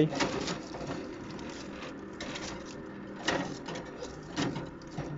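Foil pie pan scraping and knocking against the wire rack of a countertop electric oven as it is pushed in, a few separate knocks, over the steady hum of the oven's convection fan.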